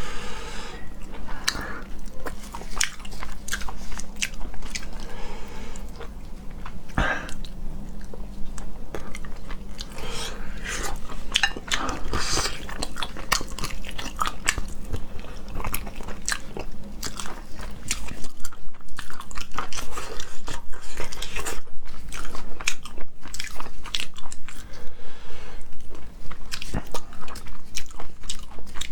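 Close-miked chewing and crunching of shrimp, a dense run of irregular crackling bites. The chewing gets louder and more regular about two thirds of the way through.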